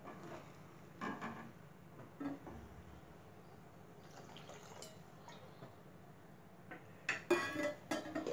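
Faint clinks of metal kitchen utensils against a cooking pot, with a louder ringing metallic clatter near the end.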